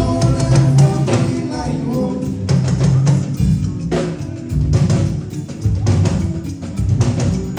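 Band music through a PA system during a sound check: a drum kit keeps a steady beat under a singing voice.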